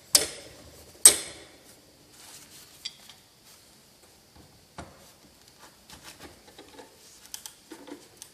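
Heavy steel C-clamps clanking together as a third clamp is fitted onto the workbench assembly: two sharp, ringing metal clanks within the first second or so. After that come softer clicks and taps as the clamp's screw is tightened down.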